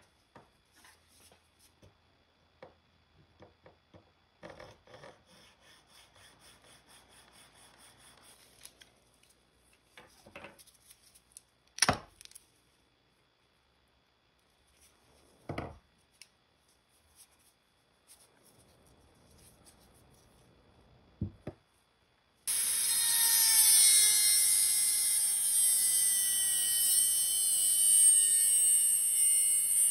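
Faint quick rasping strokes and a few sharp knocks, then a handheld rotary tool starts about three-quarters of the way through and grinds rust off a steel hammer head with a loud, steady high whine, its pitch sagging slightly as it bears on the metal.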